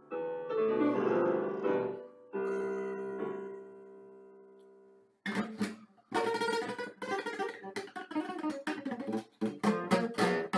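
Electronic keyboard playing piano chords, the last chord held and fading away; about five seconds in, a classical guitar takes over with quick plucked notes.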